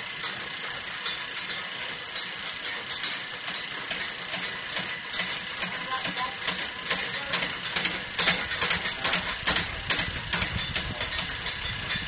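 Motorised drain-cleaning snake running steadily while its cable is fed into a drain cleanout, with quick rattling and clicking of the cable that gets busier in the second half.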